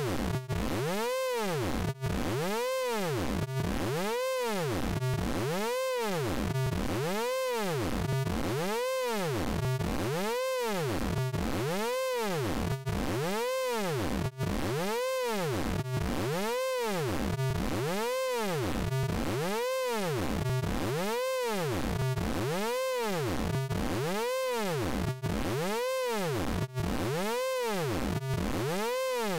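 Synthesized vocoder tone from the Orange Vocoder plugin: a buzzy sound rich in overtones that sweeps up and down over and over, about five sweeps every four seconds, at a steady level.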